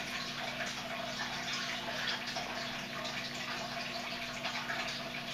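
Steady trickle of water with a low, even electric hum, from a fish tank's filter running.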